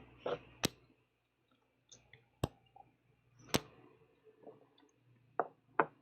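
Clicks of a computer mouse: about five sharp single clicks at uneven intervals, with a few softer clicks between.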